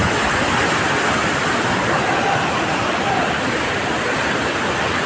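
Steady rush of a waterfall and its fast-flowing stream over rocks, an even unbroken noise.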